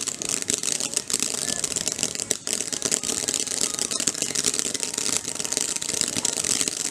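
Ground fountain firework burning, giving off a dense, steady hiss and crackle of many fine pops.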